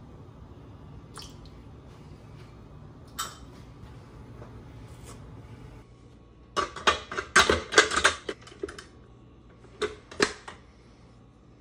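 Stainless steel mixing bowl knocking and clicking against the bowl-lift arms of a KitchenAid stand mixer as it is fitted into place. A quick run of sharp metallic clicks comes about six and a half seconds in, then a few more near the end; before that only faint room tone with a few small ticks.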